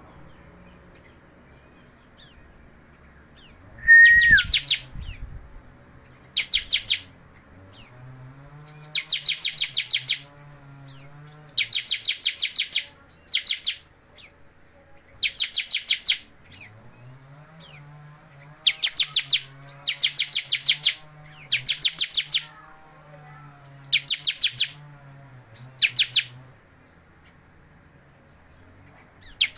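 Bar-winged prinia (ciblek) singing: bursts of rapid, high chirps about a second long, repeated every second or two. About four seconds in comes a single louder, lower whistled note that slurs down. The bird is in moult yet still singing persistently.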